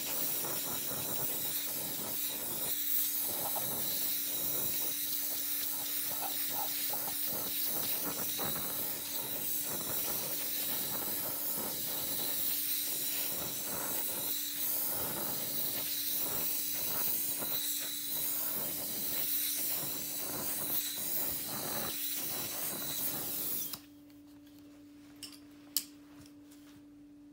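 Oxy-fuel torch flame hissing steadily as it heats a coil of gold wire, then cutting off suddenly about 24 seconds in as the torch is shut off. A couple of faint clicks follow.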